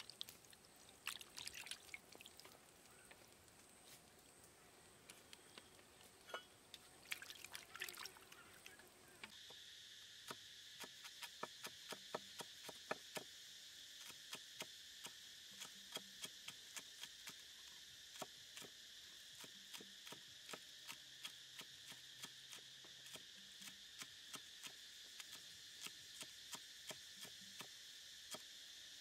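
Hands swishing raw chicken legs in a metal bowl of water, with small splashes and drips. After about nine seconds, a cleaver chops spring onions on a wooden board in quick, even strokes over a steady high insect drone.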